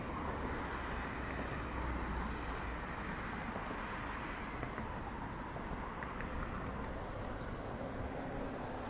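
Steady outdoor street ambience: a low rumble of traffic under an even hiss.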